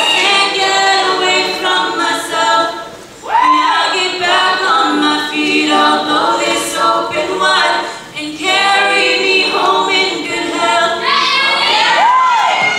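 All-female a cappella group singing: a lead soloist on a microphone over the group's backing vocal harmonies, with a quick rising-and-falling vocal swoop twice and brief dips about three and eight seconds in.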